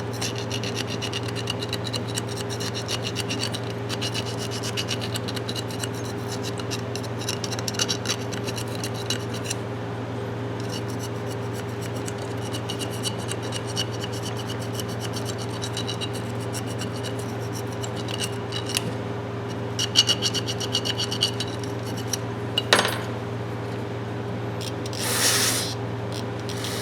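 A round file rasping on the steel of an adjustable wrench, dressing a damaged spot where the sliding jaw catches. The scraping comes in runs with short pauses, over a steady low hum. Near the end there is a sharp click and then a short hiss.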